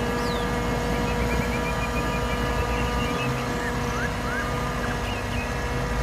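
Heavy tipper truck's diesel engine running steadily while its hydraulic body tips a load of sand, with a few bird chirps over it.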